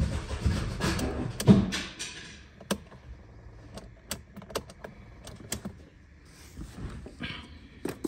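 Car engine turning over on the starter without catching, a rhythmic chugging that stops about two seconds in as the jump pack powering it runs flat; the engine is starved of fuel, the tank being nearly empty. Scattered light clicks and a jingle of keys follow.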